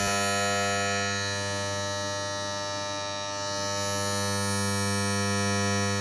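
Steady electronic buzzing drone: many steady tones stacked over a strong low hum. Its deepest rumble cuts out right at the start, and it dips slightly in loudness midway.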